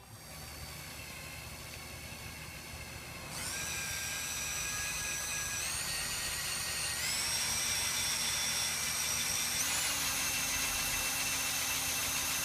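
Electric power drill whirring as it spins an apple skewered on a metal rod. Its whine jumps up in pitch about four times as the speed rises, getting louder after about three seconds.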